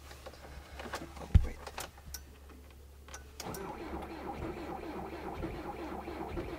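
Volkswagen Caddy TDI diesel engine being cold-started at about −27 °C. A few clicks and one sharp thump come first, then about three and a half seconds in the engine catches and runs steadily.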